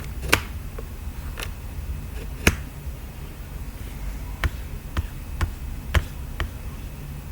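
About eight sharp, short taps at irregular intervals, over a low steady hum.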